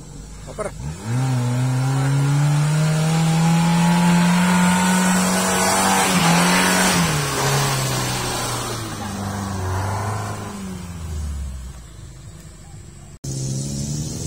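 Suzuki Jimny 4x4 engine revving hard under load as it drives up the track, pitch climbing slowly for several seconds from about a second in, then falling away as it passes. A sudden cut near the end leads into another engine running.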